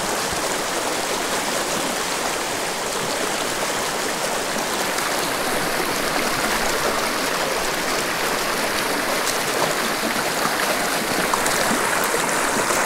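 Small rocky mountain creek running steadily over stones, a constant rush of water.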